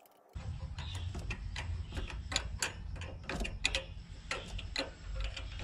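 Irregular light clicks and ticks of metal parts and tools being handled on the throttle bodies, over a low rumble that starts suddenly about a third of a second in.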